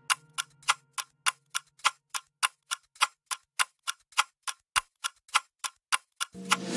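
Steady, even ticking, about three ticks a second, laid over the video as part of its soundtrack. A held low note fades out over the first couple of seconds, and music with a heavy beat comes in near the end.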